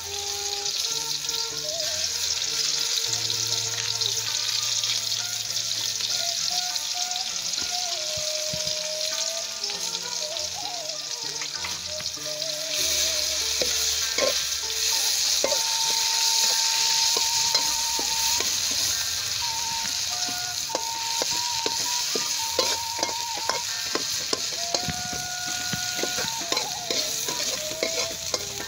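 A coarsely ground chilli, garlic and shallot paste sizzling in hot oil in a wok, the sizzle getting louder about halfway through. From about halfway on, a metal spatula scrapes and knocks against the wok as the paste is stirred.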